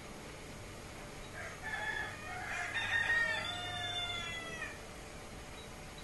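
A rooster crowing once, a single long crow beginning about one and a half seconds in and lasting around three seconds, heard faintly in the background.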